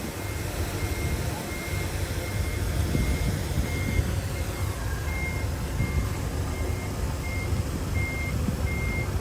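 A heavy construction machine's reversing alarm beeping steadily, a short high beep about every 0.7 seconds, over the low rumble of a diesel engine.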